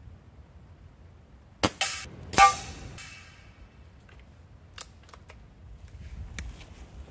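Rifle shooting: a sharp crack, then a louder report with a short ringing tail under a second later, followed by a few light clicks.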